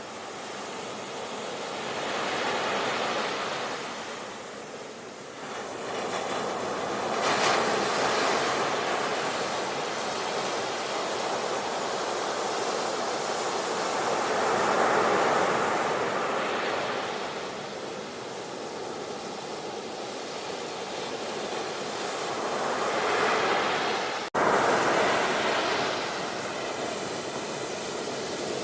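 Sea waves washing onto a shore, the surf swelling and falling back in surges every several seconds. About 24 seconds in, the sound cuts out for an instant and comes back abruptly.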